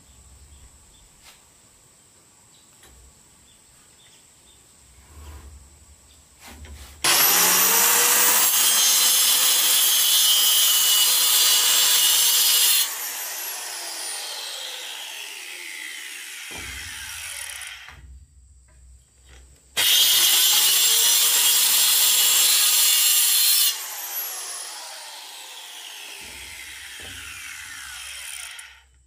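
Handheld electric circular saw cutting wood twice. Each time the motor whines up to speed, the blade saws through the beam for about four to six seconds, and then the saw is released and its blade winds down with a falling whine over several seconds.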